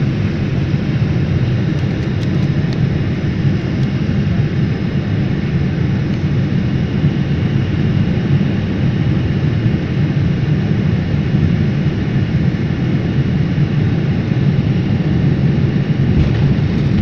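Steady low rumble of a jet airliner's engines and wheels, heard inside the cabin beside the engine, as the plane rolls along the runway after touchdown.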